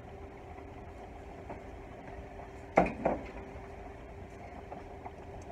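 A wine bottle set down with a sharp knock about three seconds in, followed by a lighter knock, over a steady low hum with a faint held tone.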